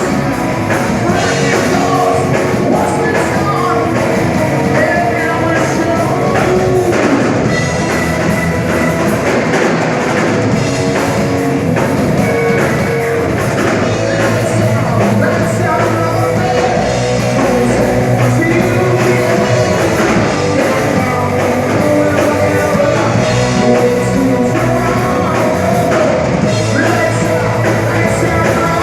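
Rock band playing loudly, with singing over electric guitar and a drum kit.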